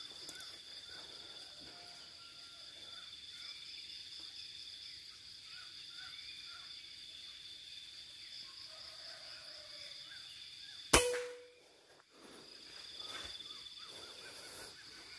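A single sharp rifle shot about eleven seconds in, with a brief metallic ring, over a steady high insect drone and faint bird chirps.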